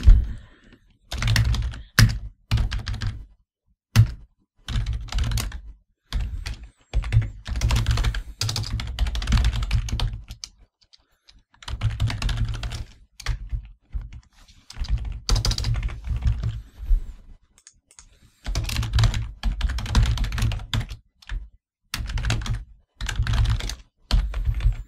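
Typing on a computer keyboard: fast runs of key clicks with heavy thuds as the keys bottom out, in bursts separated by short pauses.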